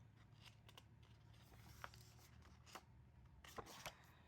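Near silence with a few faint short rustles and taps of album pages and paper being handled.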